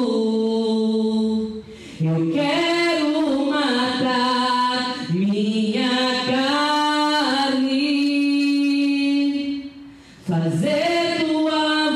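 A woman singing a slow worship song unaccompanied into a handheld microphone, holding long notes with some glides between them. She breaks off briefly twice, about two seconds in and again about ten seconds in.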